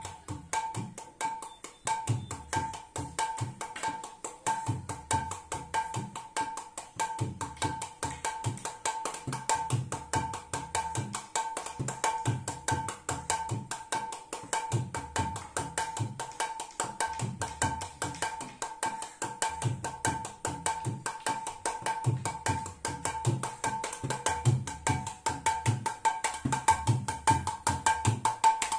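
Mridanga, the clay-bodied two-headed hand drum, played with both hands in a fast, continuous rhythm: rapid ringing strokes on the small treble head over recurring clusters of deep booms from the bass head.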